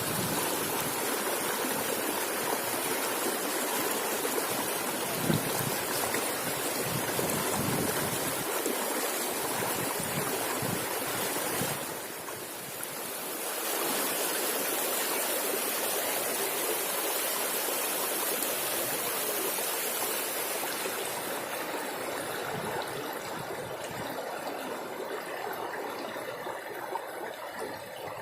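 River water rushing steadily. It dips briefly near the middle and turns quieter and duller over the last few seconds.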